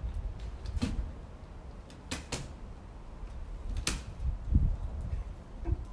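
Several sharp knocks and clacks from a folding rooftop tent's metal ladder and frame being handled and pressed down as the tent is folded shut, over a low rumble.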